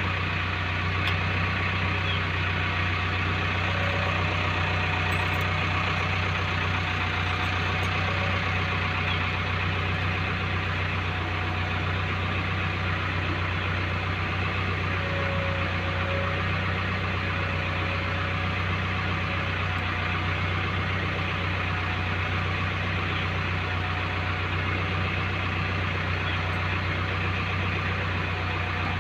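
JCB backhoe loader's diesel engine idling steadily with a constant low hum, and a few faint clicks in the first several seconds.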